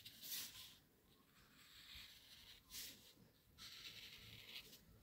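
Faint scratching of a felt-tip marker drawn across paper in several short strokes, with a longer stroke near the end.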